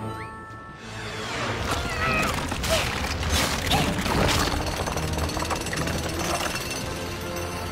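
Cartoon sound effects of rock rumbling, cracking and crumbling as a huge boulder is smashed to pieces, building up about a second in, with background music.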